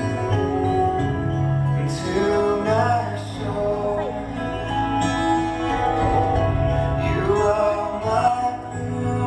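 Gospel song playing: a man singing sustained, gliding phrases over steady instrumental accompaniment.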